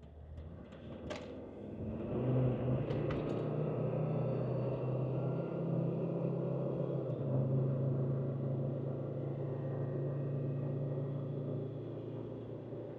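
Land Rover Discovery Td5 2.5-litre five-cylinder turbodiesel, heard from inside the cabin, pulling hard under acceleration. The drone swells over the first two seconds, then holds loud and steady, with the turbo reaching its boost target.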